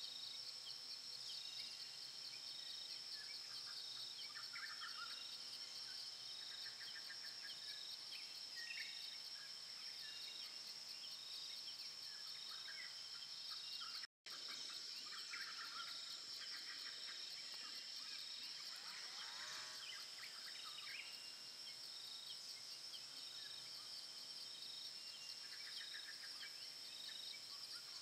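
Tropical rainforest ambience: a steady, high-pitched insect chorus with a second insect call pulsing just below it, and scattered short bird calls. The sound drops out for an instant about halfway through.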